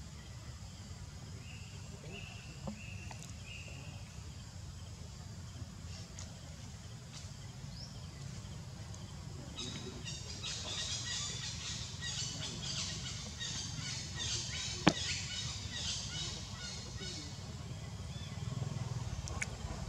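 Outdoor ambience with birds calling: four short, even whistled notes early on, then a rapid run of high chirping through the middle, over a steady low rumble. A single sharp click stands out about three-quarters of the way through.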